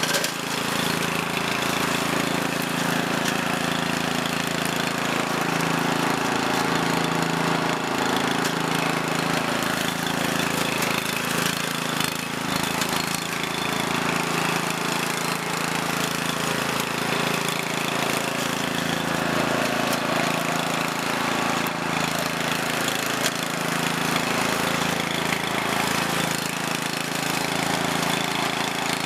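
Walk-behind brush hog's gasoline engine running steadily while it is pushed through tall grass and small saplings.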